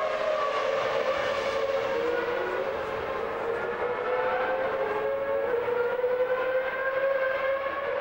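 Onboard sound of a McLaren-Mercedes MP4/15 Formula One car's 3-litre V10 running at high revs, a sustained whine whose pitch climbs slowly as the car accelerates.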